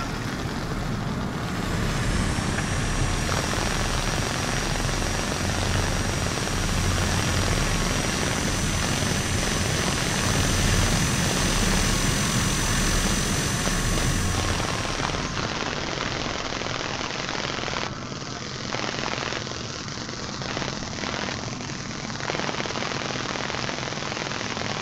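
Cessna light aircraft's piston engine and propeller running steadily with a dense rush of noise. It gets somewhat quieter and less even about eighteen seconds in.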